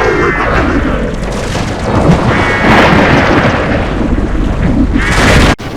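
Loud, heavily distorted effects-remix audio: harsh noise mixed with shifting pitched tones, broken by a sudden cut near the end.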